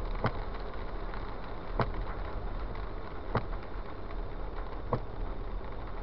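Steady hiss of tyres on wet pavement and a car's running noise heard from inside the cabin. A short knock repeats evenly about every second and a half, typical of windshield wipers at the end of each sweep.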